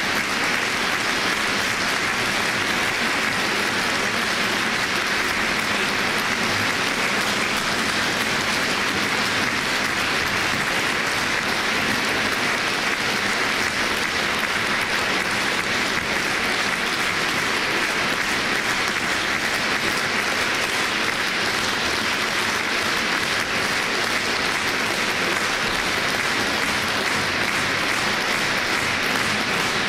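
Concert-hall audience applauding steadily, a dense, even patter of many hands clapping that neither builds nor fades.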